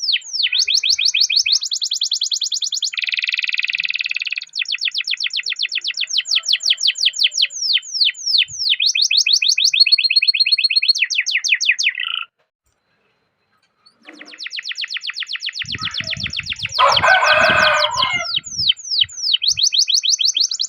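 Domestic canary singing a long rolling song: fast trills of repeated down-sweeping notes, changing to buzzier and held-tone phrases. It breaks off for about a second and a half past the middle, then starts again over some soft low thuds.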